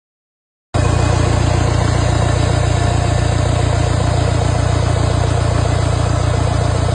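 Silence, then less than a second in, a vehicle engine idling steadily and loudly with an even rhythmic beat.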